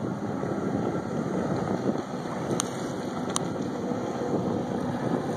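Wind buffeting the microphone over the distant running of a 2005 Sea-Doo RXT jet ski at speed.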